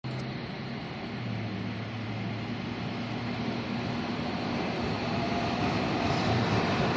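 Fukui Railway F2000-series low-floor tram running on street track as it approaches, growing steadily louder, with a faint steady hum under the rolling noise.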